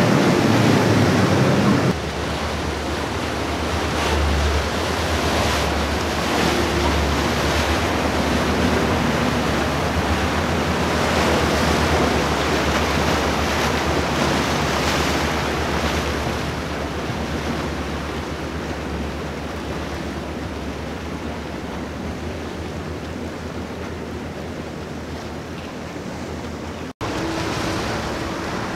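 Powerboats running at speed, their engines rumbling under the rush of wake water, with wind buffeting the microphone. For the first two seconds it is louder, from a center console pushed by four outboards, then it cuts abruptly to a steadier, quieter wash. It drops out briefly near the end.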